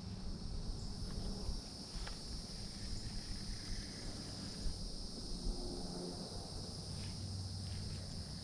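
Steady high-pitched insect chorus, crickets or similar insects trilling without a break, over a low steady hum and a few faint ticks.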